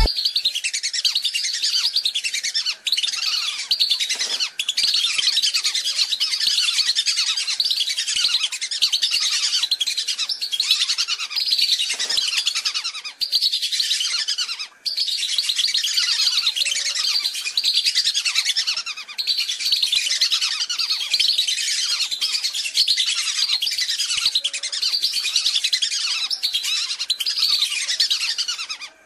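Lure recording of a flock of whistling ducks (belibis) calling, with dense, overlapping high chirping whistles that run almost without pause.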